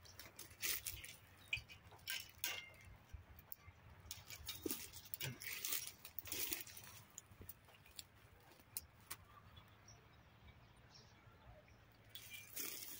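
Faint, scattered rustles and scrapes of a long-handled garden rake working among dry, bare tree branches. The sounds come mostly in the first half and thin out after that.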